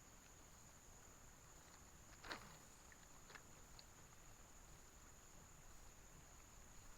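Near silence: a faint steady high-pitched whine, with one brief soft sound a little over two seconds in and a couple of faint ticks after it.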